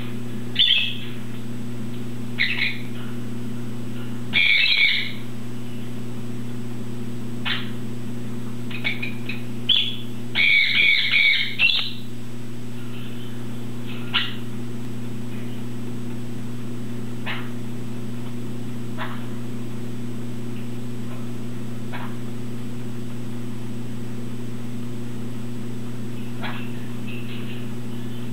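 Pet parrots giving short chirping calls, several close together in the first twelve seconds, then fainter single chirps every few seconds. A steady low hum runs underneath.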